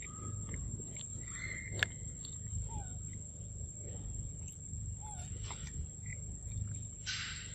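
A monkey chewing and biting into a ripe mango, with soft wet mouth and smacking noises and small clicks. One sharp click comes about two seconds in, and a short hissing rustle comes near the end.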